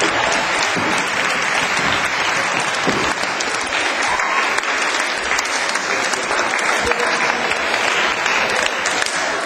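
Audience of school pupils applauding, steady clapping from many hands.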